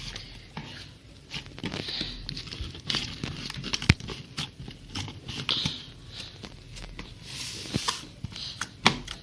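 Slime being kneaded and stretched by hand, giving off irregular sticky clicks and crackles, with one sharper click about four seconds in.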